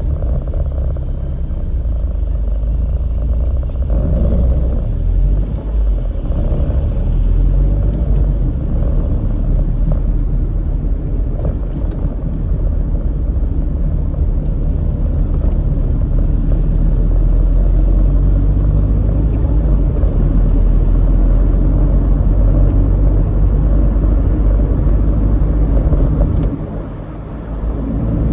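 Car driving through busy city traffic: a steady, loud, low rumble of engine and tyre road noise, easing briefly near the end.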